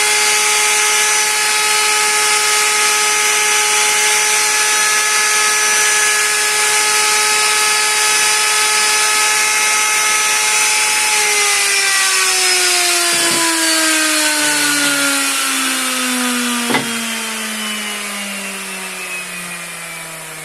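A woodworking power tool's motor running at a steady high whine, then switched off about halfway through and spinning down, its pitch falling smoothly as it slows. A few sharp knocks sound as it coasts down.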